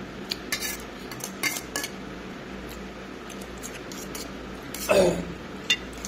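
An eating utensil clicking and scraping against a bowl in scattered light taps while noodles are eaten. About five seconds in there is one brief, louder sound.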